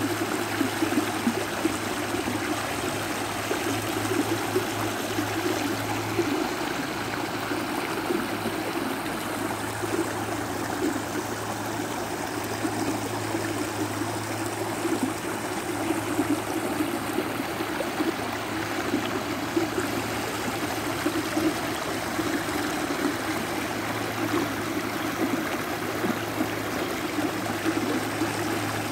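Shallow creek water rushing and burbling over a low ledge of stones into a rocky riffle, a steady unbroken flow.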